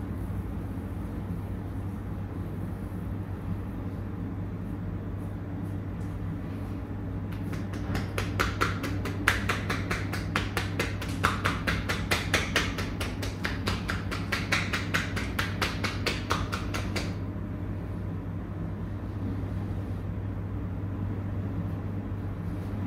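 Hands tapping a customer rhythmically in a percussive massage, a fast even run of about five sharp slaps a second that starts about seven seconds in and stops about ten seconds later, over a steady low hum.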